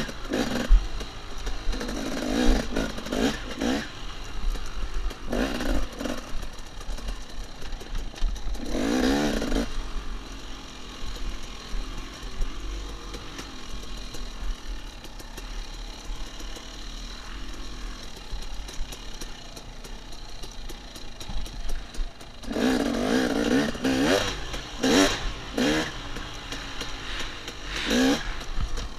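KTM 250 XC two-stroke dirt bike engine revving hard in short bursts as the throttle is worked over rough, rutted trail, pitch rising and falling with each burst. A long easier, steadier stretch in the middle, then repeated hard revving again near the end.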